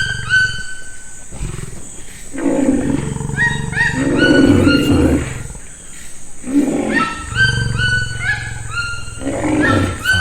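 A big cat, lion or tiger, growling and roaring in repeated rough bouts, with many short rising chirps sounding above it.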